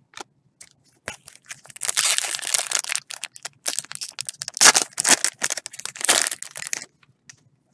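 Foil trading-card pack wrapper being torn open and crinkled by gloved hands, in a run of rustling bursts that starts about a second in and stops about a second before the end.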